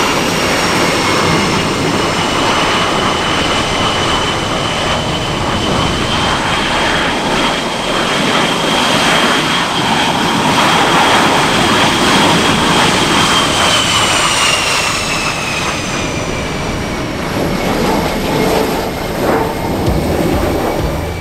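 Jet aircraft flying past with a loud, steady roar and a high whine that holds, then drops in pitch about two-thirds of the way through as the aircraft goes by.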